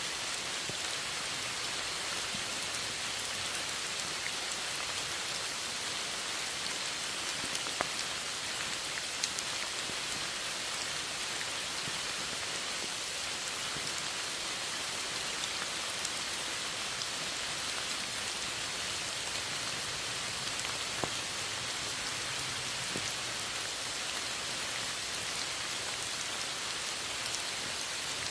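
Steady rainfall, an even hiss of rain with scattered single drops striking a hard surface.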